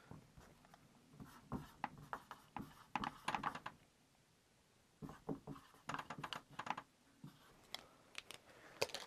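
Marker writing on a whiteboard: clusters of short squeaks and taps as the tip strokes across the board, with a pause of about a second midway.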